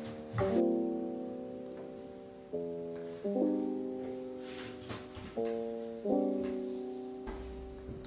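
Background piano music: slow, soft sustained chords, a new chord struck every second or two.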